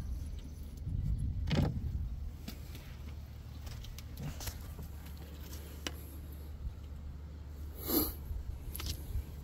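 Chipped stone flakes and points clicking and scraping against each other as they are handled, with a thump about one and a half seconds in and a sharper clack near the end, over a steady low hum.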